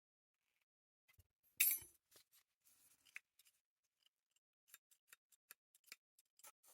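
Close-miked ASMR prop sounds: a short, loud scratchy rustle about one and a half seconds in, then a string of small sharp clicks and snips, a few a second.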